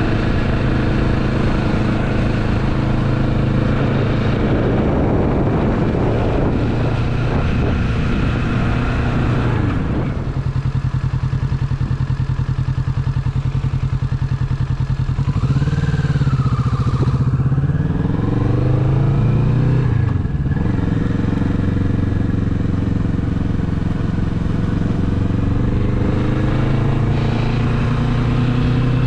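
Motorcycle engine heard from the rider's seat. It runs steadily, drops to a low idle a third of the way in while the bike is stopped, then revs rise as it pulls away through the gears about halfway through and settle into a steady cruise. The revs climb again near the end.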